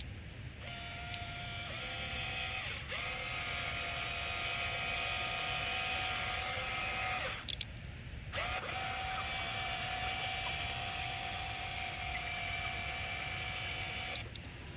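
Radio-controlled excavator's motor whining at a steady high pitch in two long runs, with a break of about a second in the middle; the pitch steps slightly a few times as it works.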